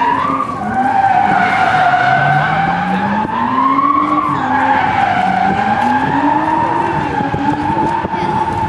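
Drifting car's tyres squealing without a break, the squeal wavering in pitch as the car slides. Under it the engine revs rise and fall as the driver works the throttle through the slide.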